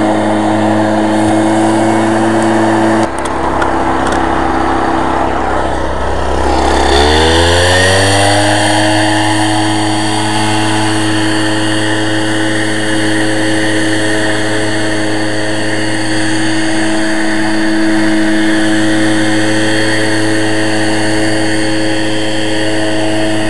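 Echo PB-413H backpack leaf blower's two-stroke engine running at high throttle, dropping to a lower speed about three seconds in, then revving back up with a rising whine about seven seconds in and holding steady at full throttle.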